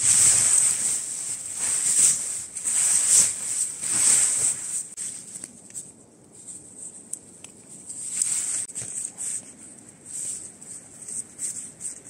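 Tent fabric rustling and crinkling as it is bunched up and stuffed into a stuff sack by hand, in repeated bursts that are loudest in the first few seconds and then quieter and more scattered.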